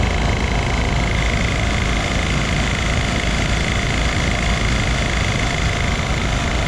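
Rooftop RV air conditioner running with its cover off: fan and compressor, a steady loud hum with a constant high whine. Its squirrel-cage blower wheel is slightly bent and vibrating on a newly fitted fan motor.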